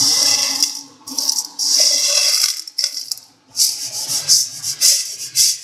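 Freshly roasted coffee beans rattling against each other and a stainless steel bowl as a hand stirs and flips them. It comes in a few dry bouts, the last a quick run of short shakes.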